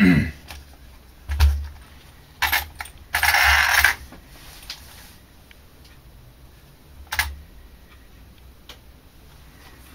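Handling noise from a 1:8 RC car chassis being turned over and set down on a wooden board: a dull thump, a couple of clicks, a short scraping rustle, then one more knock several seconds later.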